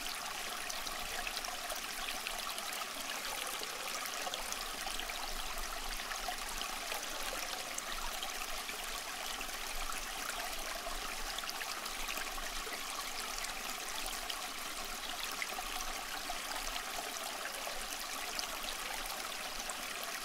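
Steady rushing water sound, like a flowing stream, with no change in level throughout.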